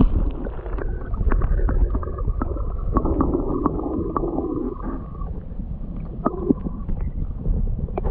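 Low rumble of moving river water, with scattered light knocks and clicks.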